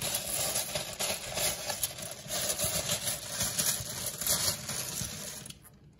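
Small letter tiles clattering and clicking together as a hand rummages through them. The clatter stops about half a second before the end.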